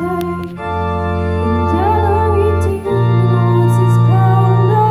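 Live rock band playing: a keyboard holds sustained chords over electric bass and guitar, with a voice singing a wavering line above. The chords change about half a second in and again near three seconds.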